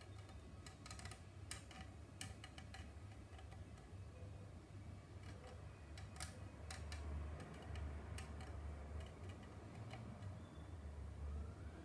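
Light, irregular clicks and ticks from hand tools working on a plastic model car body shell, thickest in the first half and sparser later, over a low steady hum.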